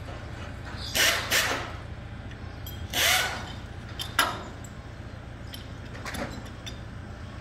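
Machinery working at a used-engine yard: a steady low engine rumble, broken by loud bursts of clatter and hiss about one and three seconds in, a sharp clank about four seconds in, and lighter knocks near the end.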